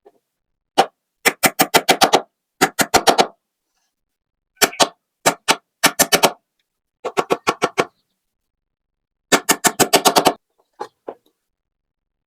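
Rapid runs of sharp knocks on wood, several strokes in quick succession, then a pause, repeated about seven times, like light rapid hammer taps during bird-cage construction.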